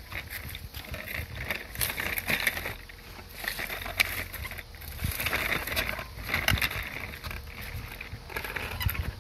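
Plastic baby walker rolling over brick paving and dirt, its wheels and frame rattling, with irregular clicks and knocks.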